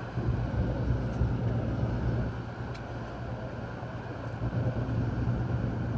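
Motor yacht's engines running steadily under way: a low, even drone under rushing air and water noise that swells and dips.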